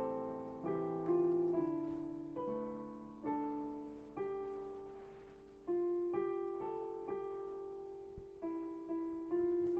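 Slow, quiet solo piano music: single notes and soft chords struck roughly once a second, each left to ring and fade.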